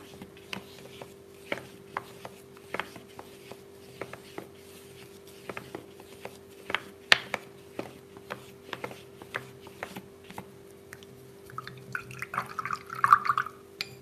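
Paintbrush worked across wet paint on paper, giving a run of light, irregular taps and scratches. Near the end there is a brief swish of water as the brush is rinsed in the water jar.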